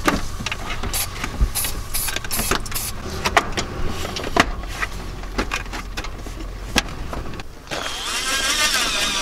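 Plastic fan trim ring clicking and knocking as it is pressed into the ceiling opening. About three-quarters of the way through, a cordless drill starts driving the trim screws, its motor whine rising and falling in pitch.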